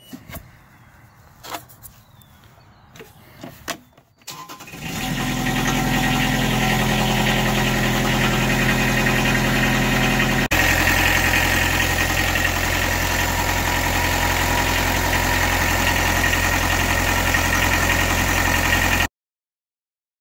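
Jacobsen LF 550 reel mower's diesel engine: a few clicks, then it is started about four seconds in, catches within a second and runs steadily. Its note shifts abruptly about halfway through, and the sound cuts off suddenly near the end.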